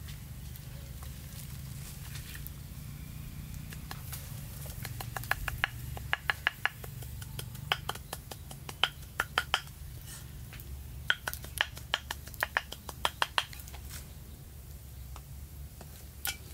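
Knife chopping chili flakes into a minced mixture on a round wooden chopping board: quick runs of sharp knocks, several a second, starting about four seconds in and stopping a few seconds before the end, with a steady low hum underneath.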